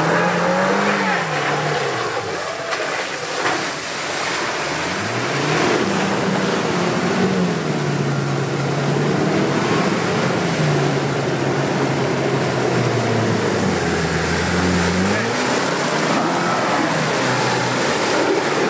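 Land Rover Defender 90 P300's turbocharged four-cylinder petrol engine working under load as the vehicle drives through a flooded, muddy rut. The engine note rises and falls several times, over the rush of water and mud churned by the tyres.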